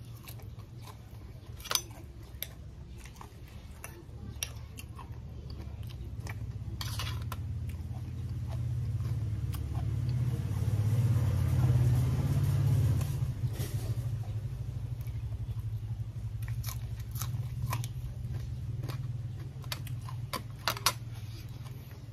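Close-up chewing and crunching of crisp fresh leaves wrapped around raw beef, with scattered sharp crunches. Under it a low rumble swells to its loudest about halfway through and then eases off.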